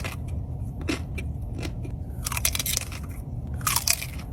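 Close-miked eating of a dessert: bites and chewing with crisp crunches that come in a few short bursts.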